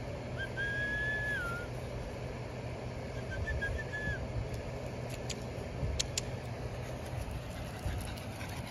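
A person whistling to call dogs: a long steady whistled note that dips at the end, then a shorter broken whistle about three seconds in, over a steady low hum, with a few sharp clicks later.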